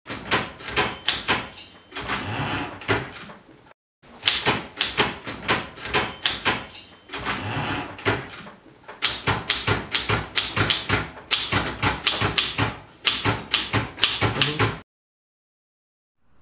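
Old manual typewriter being typed on: rapid, irregular key strikes clattering in runs with short breaks between them, stopping suddenly near the end.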